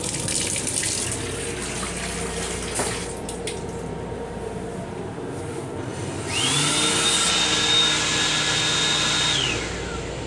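Water running into the railcar restroom's sink for the first few seconds, with a couple of clicks. About six seconds in, the sink unit's built-in electric hand dryer starts: its motor whine climbs quickly and holds steady over rushing air for about three seconds, then winds down as it shuts off.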